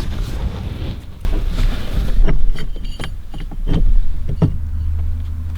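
Handling noise as a hand-held camera is set down inside a car: a low rumble with several knocks and clicks, then a steadier low hum near the end.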